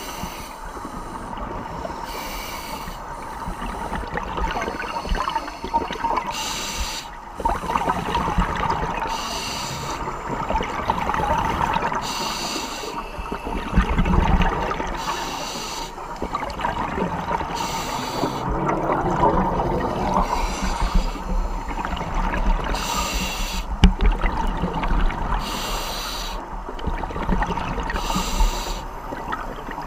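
Scuba diver breathing through a regulator underwater: bursts of exhaled bubbles every two to four seconds, with a steady hiss and rumble of water between them.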